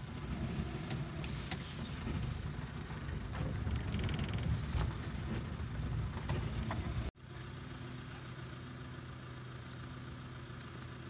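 Vehicle engine running, heard from inside the cabin: a rough low rumble with scattered light knocks, then about seven seconds in the sound cuts out for an instant and returns as a steadier, even engine hum.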